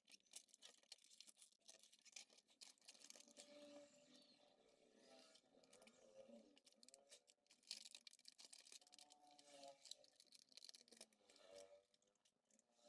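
Faint, irregular crackling and crinkling of a moldy plastic polarizer film being peeled off the glass of an LCD panel.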